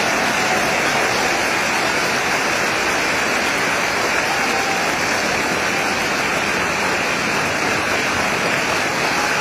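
Concert audience applauding steadily at the end of an orchestral piece, a dense even clapping that follows straight on from the last notes.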